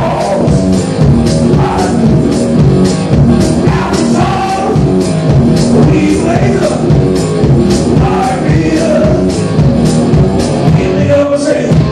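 Live rock band playing loud, with electric guitar over a steady drum beat of about three hits a second.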